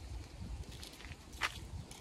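Faint outdoor background with a low, uneven rumble and a single sharp click about one and a half seconds in.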